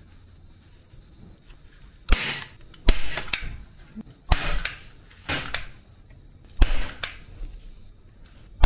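A nail gun firing about five single shots, spaced irregularly one to two seconds apart, each a sharp crack with a short noisy tail, as it drives fasteners into wooden board.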